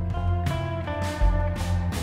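Background music: a guitar-led track with a steady bass line.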